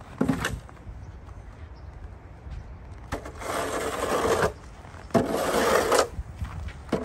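Snow shovel scraping snow across paved decking in two long pushes, with short knocks of the blade just after the start and at the end.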